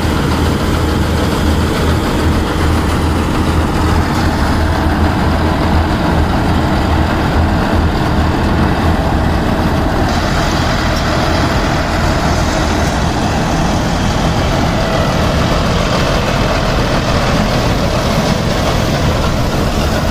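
Common-rail diesel engine of a John Deere 5075E tractor and its mounted combine-harvester machinery running steadily while harvesting wheat, a loud continuous low drone.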